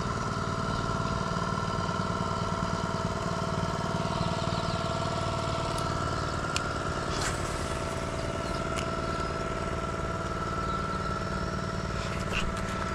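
A small engine running steadily at a constant pitch, a droning hum with a thin high whine over it. A few faint clicks come in the middle.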